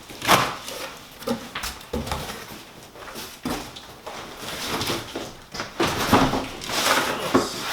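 Cardboard shipping box and packing being handled and dragged: irregular scraping, rustling and knocks, busier toward the end.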